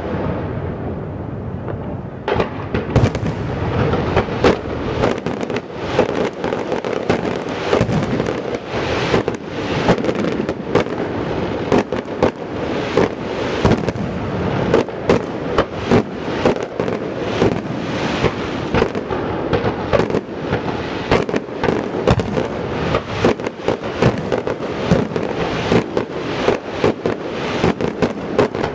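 Fireworks going off without a break: a dense run of sharp bangs, several a second, over a steady crackling rumble.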